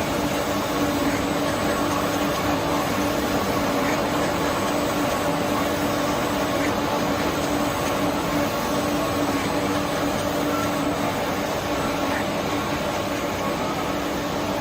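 Wide CNC pressure sanding machine running steadily: a constant mechanical drone with a steady hum.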